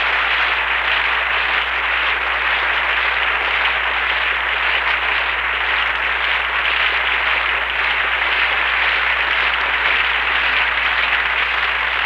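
Audience applause, a steady even clatter of many hands throughout, over a low steady hum.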